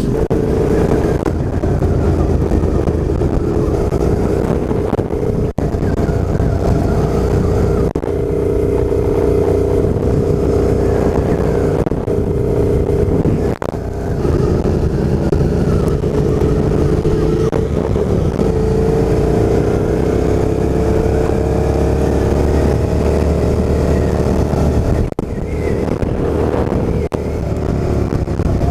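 Motorcycle engine running at road speed under wind rush, heard from the bike itself, with the pitch rising as it speeds up about two thirds of the way through. The sound breaks briefly at several cuts between clips.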